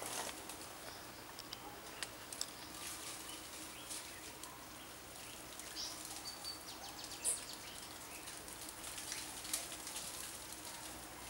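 Faint tropical forest ambience: a steady low hum under a few short, high bird chirps, with scattered sharp dry clicks and crackles throughout.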